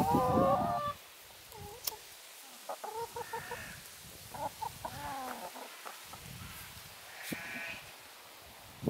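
Hens calling: a loud, drawn-out call in the first second, then several softer, shorter clucks spread through the rest.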